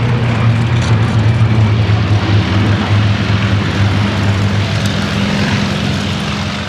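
Piston aero engines of a Bristol Blenheim bomber and four Spitfire Mk I fighters flying past in formation: a steady, loud drone that eases off slightly near the end.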